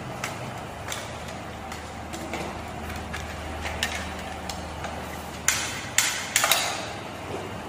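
Handling of toy rifles and their parts: light clicks and clacks of plastic pieces, then three or four sharp, louder clacks near the end, as when a magazine or part is snapped into place.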